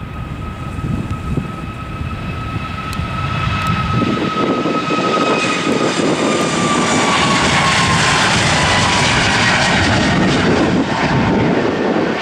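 Boeing 737-8 MAX's CFM LEAP-1B turbofans at takeoff thrust as the jet rolls down the runway and lifts off. A steady jet whine over a dense roar grows louder over the first few seconds, then sinks slowly in pitch as the aircraft passes.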